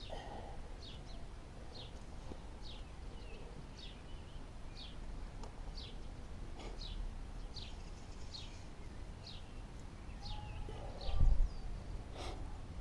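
A small bird calling repeatedly: a steady series of short, high chirps, each sliding downward, a little more than one a second. About eleven seconds in, a brief low bump is the loudest sound.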